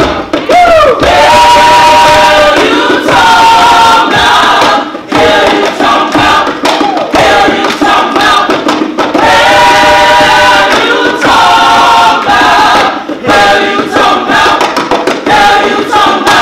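A group of voices singing slow, held chords in harmony, in phrases of one to three seconds with short breaks between them.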